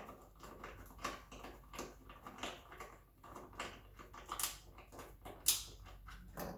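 Irregular clicks and taps of hand work on hood-strut hardware at the hood hinge, with one louder click about five and a half seconds in.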